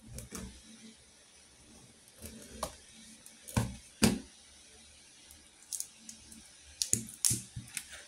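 Hands handling an RG6 coaxial cable and a plastic utility knife on a cloth-covered table while peeling off the cable's black outer jacket: scattered clicks and taps, with two louder knocks about three and a half and four seconds in and a quick run of clicks near the end.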